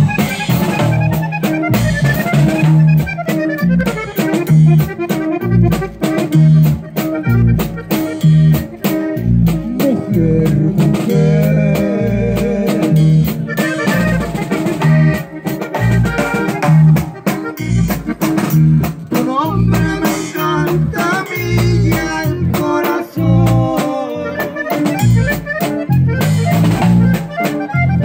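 Band music with a drum kit and bass keeping a steady, even beat under a moving melody line.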